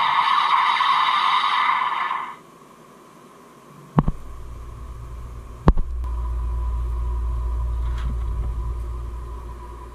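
Electronic sound effect from the DX Desire Driver toy belt's built-in speaker, cutting off about two seconds in while its lights flash. Then two sharp clicks and a low rumble from the toy being handled.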